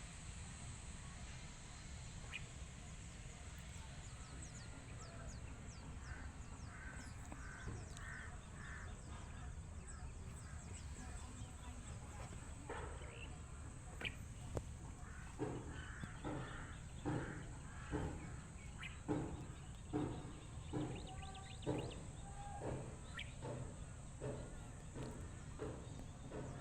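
A bird giving a run of short, harsh calls, about one a second through the second half, over a steady high insect hiss.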